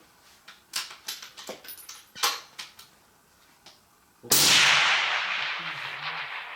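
A few light clicks and knocks, then about four seconds in a single rifle shot, its report rolling away slowly over the next seconds.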